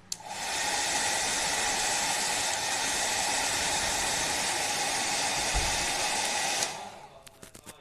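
PowerPac travel hair dryer switched on with a click and blowing with a steady rush of air. It cuts off abruptly about six and a half seconds in, followed by a few faint clicks.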